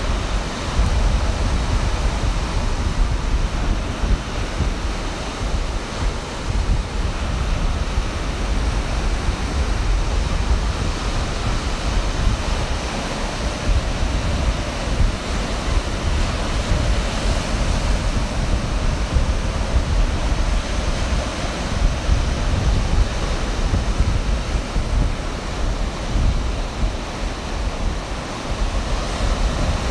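Ocean surf breaking and washing up the beach in a steady rush, with wind buffeting the microphone in low rumbles.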